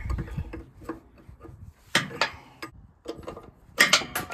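Metal hydraulic hose fittings on a wheel-line drive being unscrewed and handled by gloved hands. Scattered sharp metallic clicks and scrapes come sharpest about two seconds in and again in a quick cluster near the end.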